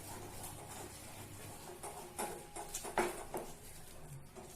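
A few faint, scattered clicks and taps of a spoon against a cooking pan while thick halwa is stirred, most of them between about two and three and a half seconds in.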